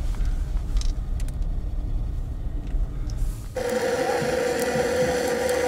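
Low, steady engine rumble heard inside a car cabin, then, about three and a half seconds in, a handheld butane gas torch burning with a steady hiss and a constant hum-like tone.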